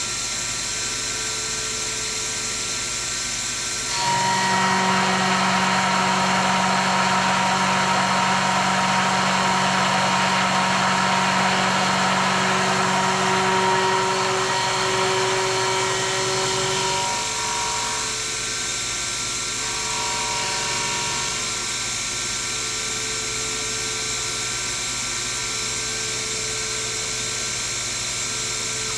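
Sherline mill spindle running with a steady whine. About four seconds in, a louder, rougher sound joins for some thirteen seconds as the table feeds and the 3/8-inch end mill cuts along the edge of a brass bar, then it drops back to the spindle alone.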